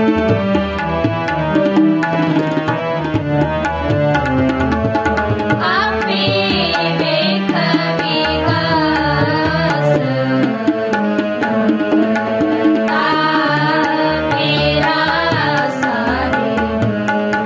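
Gurbani kirtan in Raag Sri: two harmoniums hold the melody while a tabla pair keeps a steady beat. Girls' voices sing the shabad from about six seconds in to ten, and again from about thirteen to sixteen.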